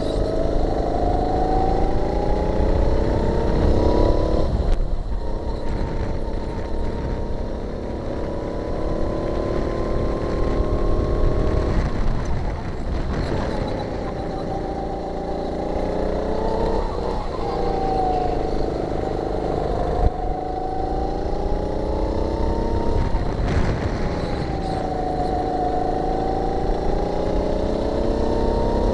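Sodi kart's engine at racing speed, its pitch climbing along the straights and dropping sharply about four times as it slows for corners, over rumbling wind and vibration on the onboard camera. A single sharp knock about two-thirds of the way through.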